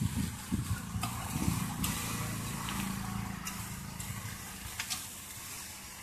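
Chopped kokoreç sizzling in melted butter in clay roof-tile dishes, with a few sharp clicks, over a low steady engine rumble.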